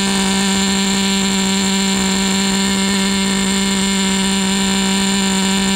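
Small OS .12 CV-X nitro glow engine in an RC buggy running steadily at a high idle, holding one constant pitch. It is fully warmed up, deliberately kept at a higher idle than normal to heat the cooling head.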